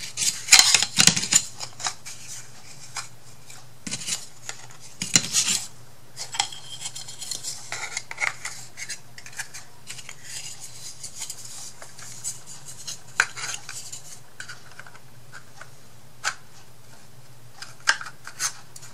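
Thin laser-cut wooden kit pieces clicking, tapping and scraping against each other and the table as they are handled and slotted together by hand, with the busiest clatter about a second in and again around five seconds in.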